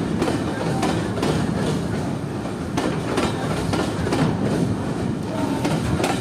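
Freight train's container flat wagons rolling past, wheels clattering over the rail joints with a steady rumble and frequent irregular knocks.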